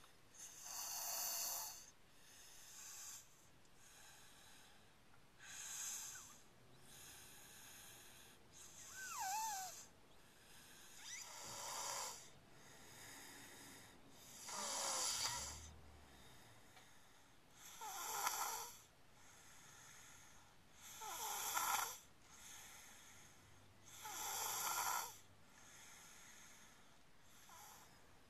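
A young child snoring in a car seat: a snore about every three seconds, some carrying a high, squeaky whistle.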